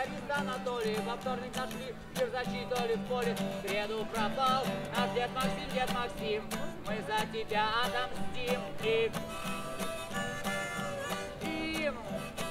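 Live acoustic guitar, strummed steadily, with a man singing over it.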